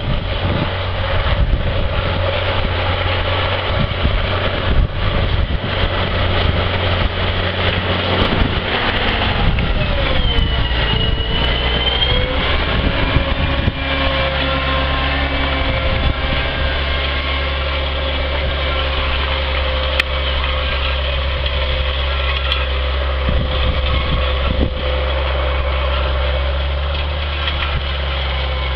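Caterpillar six-cylinder diesel engine of a Challenger MT865C tracked tractor working under load, pulling a cultivator through the field. A high whine dips and rises about ten seconds in, then holds steady over the hum of the engine.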